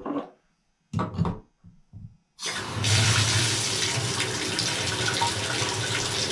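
Water coming on through a Delta single-handle tub/shower valve and running hard and steadily from the tub spout, starting suddenly about two and a half seconds in.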